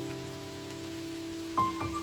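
Soft background piano music: a held chord fading away, with new notes struck near the end.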